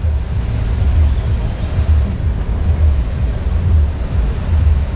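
Street traffic ambience: a steady deep rumble of passing cars that swells about once a second.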